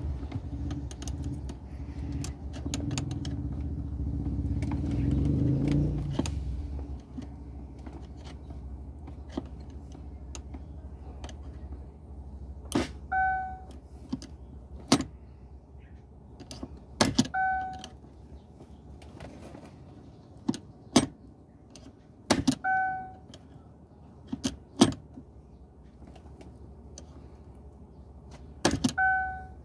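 Sharp metal clicks and knocks from a screwdriver working at the jammed gear-shifter mechanism of a Chevrolet. About four times, a click is followed at once by a short electronic beep from the car. A low rumble fades out about six seconds in.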